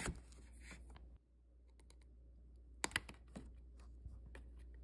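A plastic drinking straw and a small paper drink carton being handled, making sharp clicks and light scrapes. There is a loud crack right at the start, then a cluster of clicks about three seconds in as the straw is drawn out of the carton's hole.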